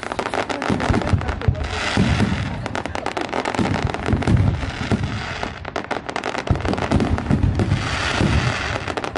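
Aerial firework shells bursting in a rapid, continuous barrage of overlapping bangs. There are stretches of crackling about two seconds in and again near the end.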